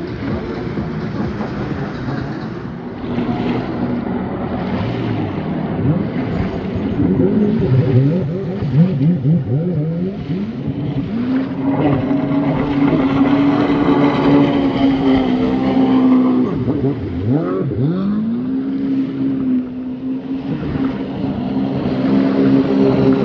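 Jet ski engine under way, its pitch climbing in several throttle surges, holding high, then dropping sharply twice as the throttle is let off before picking up again. The engine sits over a steady rush of water and wind.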